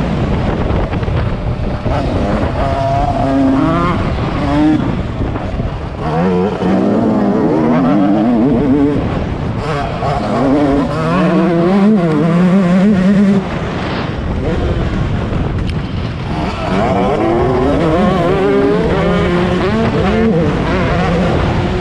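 2021 Yamaha YZ125 two-stroke motocross engine revving hard and changing gear as it races around a dirt track, its pitch rising and falling again and again. The engine drops off briefly about two-thirds of the way in, then revs up again.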